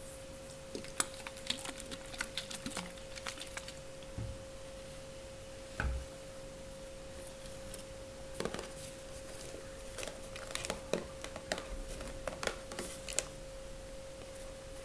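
Close-miked handling sounds: scattered light taps and crinkly clicks of fingers on face-mask packaging, with a couple of soft low thumps about four and six seconds in. A steady faint tone hums underneath.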